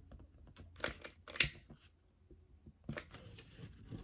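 A lighter clicking a few times, then a steady hiss from about three seconds in, as the cut ends of the nylon seatbelt webbing are melted to seal them against fraying.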